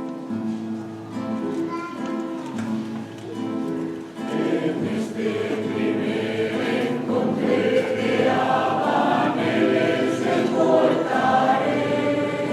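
Mixed choir singing a habanera, starting softer and swelling to a fuller, louder sound from about four seconds in.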